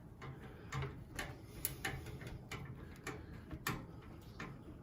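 Screws being driven by hand with a screwdriver into a plastic case fan's mounting holes: a run of small, irregular clicks and ticks.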